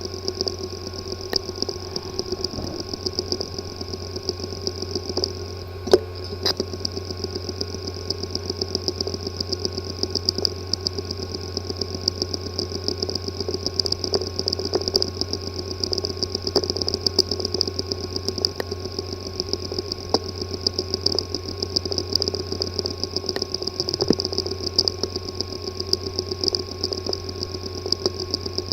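Hard drive with a physically damaged disk assembly, running with a steady buzz and rapid, repeated ticking, and a couple of louder clicks about six seconds in.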